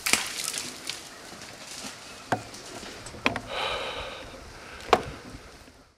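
Sharp knocks and clicks, about five spread out, with a stretch of rustling about three and a half seconds in, heard right after a bow shot at a whitetail deer.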